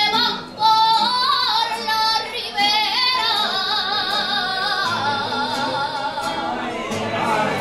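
A woman singing an Aragonese jota in full voice: a few short sung phrases, then one long held note of about four seconds with heavy vibrato.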